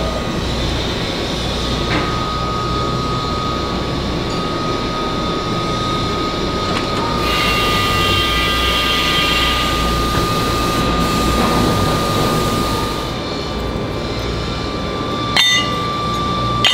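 Steady foundry machinery noise with a continuous high-pitched whine. It grows harsher and brighter through the middle, and a sharp metallic clink comes near the end.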